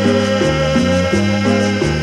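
Cumbia dance music played through a sonidero sound system, with a bass line stepping from note to note about three times a second under a long held high note.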